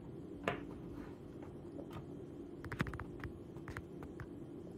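A few light clicks and taps of a hand handling a plastic Raspberry Pi case and its USB cables, over a faint steady hum. The clearest click comes about half a second in, and a quick run of ticks follows near the middle.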